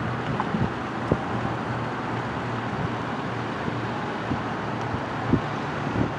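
Outdoor ambience: a steady wash of distant road traffic, with wind gusting on the camcorder microphone in short low thumps every second or so.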